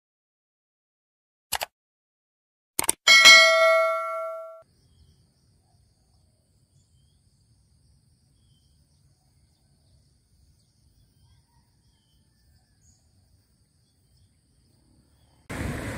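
Subscribe-button sound effect: two short clicks, then a single bright bell ding about three seconds in that rings out over a second and a half. A steady rushing noise starts near the end.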